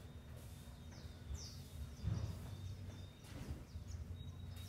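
Faint scuffs and soft taps of a broom's bristles pushing a tennis ball across a tile floor, with footsteps; the clearest knocks come about two seconds in and again a little later. Short high falling chirps sound now and then.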